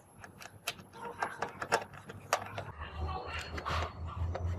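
Hand screwdriver driving a small screw through a corner of a small cooling fan into the case panel: sharp clicks and scraping as the tip turns in the screw head, growing into a denser grinding from about three seconds in.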